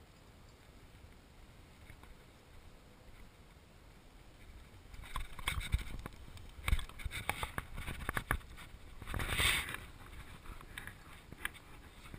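Handling noise on a body-worn camera: irregular crunching, clicks and fabric rustling as the wearer moves over sand and driftwood, starting about five seconds in, with one louder rustle a little after the middle. Before that there is only a faint low rumble.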